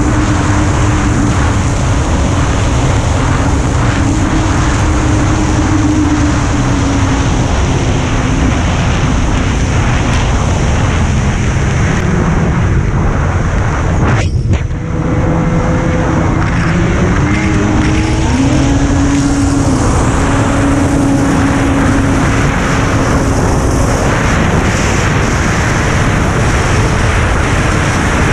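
Engine of an off-road vehicle running under throttle, with heavy wind noise on the microphone. The engine pitch wanders up and down, drops out briefly about halfway through, then comes back and changes pitch several times in quick steps.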